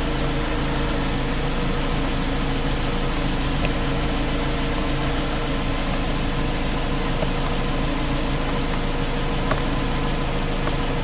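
2018 Jeep Compass's 2.4-litre four-cylinder engine idling steadily, running on freshly changed oil.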